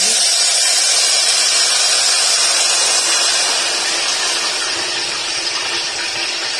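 Hot sugar syrup poured into a metal pan of fried boondi, sizzling steadily as it hits the hot pan, easing off a little after about three seconds.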